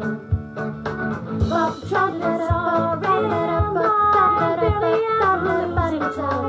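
Music: a song's passage between sung lines, with a gliding melody over guitar and a low drum hitting about once a second.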